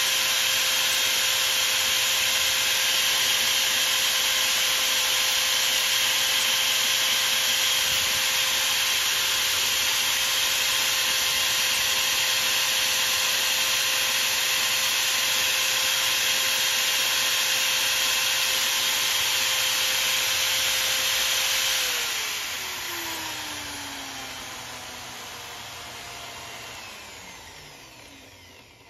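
Power drill running steadily, spinning a white slug while sandpaper is held against it, a steady whine under a sanding hiss. About 22 seconds in, the drill's motor spins down, its whine falling in pitch and fading away.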